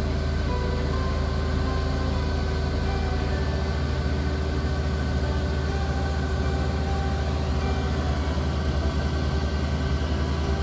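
Kubota DC-68G combine harvester's engine running steadily with a low hum while its unloading auger pours paddy grain into a trailer.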